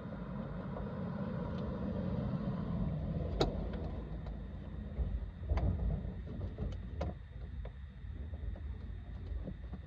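Low rumbling handling noise while plastic interior trim clips are pried at, with one sharp click about three and a half seconds in and a few softer knocks later.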